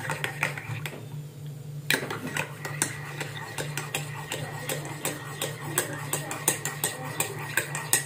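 Metal teaspoon stirring cream honey into tea in a ceramic mug, clinking against the sides in a quick, irregular run of light taps, with a short pause about a second in.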